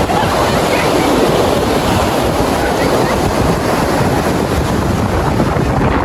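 Surf breaking and washing up the beach in a steady, loud rush, with wind buffeting the microphone.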